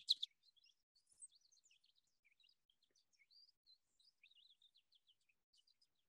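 Faint twittering of American goldfinches: many short, high chirps and warbled notes scattered throughout, louder for a moment at the start.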